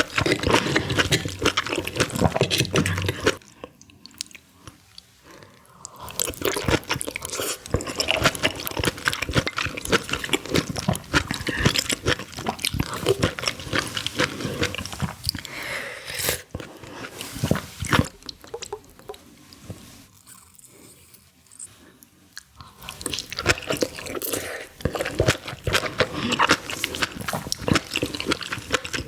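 Close-miked eating of seafood: chewing, biting and wet mouth clicks, easing off into quieter pauses twice.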